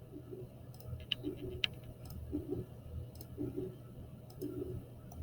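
A few faint, scattered clicks from a computer mouse and keyboard.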